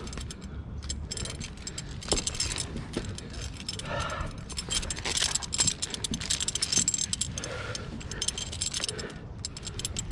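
Metal rope-climbing hardware (carabiners and a Petzl ZigZag mechanical prusik on a single-rope setup) clinking and jangling in quick, irregular clicks as the climber ascends the rope.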